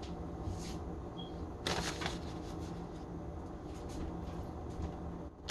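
Light rustling and patter of shredded mozzarella being sprinkled by hand onto the chicken, in short bursts about half a second and just under two seconds in, over a low steady hum.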